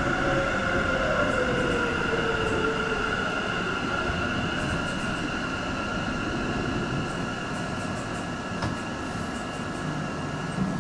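Sendai Subway 2000 series linear-motor train slowing into a station: a steady high electric whine over the running noise, with a lower tone that falls slowly in pitch over the first few seconds.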